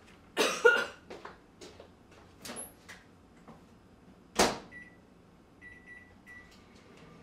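Microwave oven being used: a clatter as the food is handled, the door shutting with a sharp knock about four and a half seconds in, then three or four short keypad beeps as it is set. A faint steady hum starts near the end as the oven begins running.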